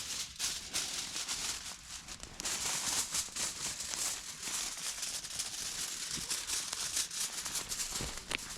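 Aluminium foil crinkling and crackling steadily as it is handled and unrolled.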